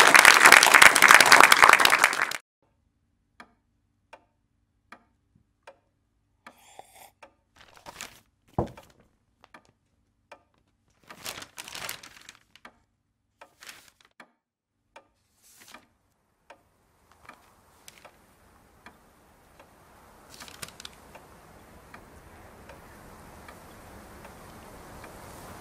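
Audience applause that stops about two seconds in. Then regular ticking, about one tick a second, with newspaper pages rustling as they are handled and a single soft thud, and near the end a rushing noise slowly swells.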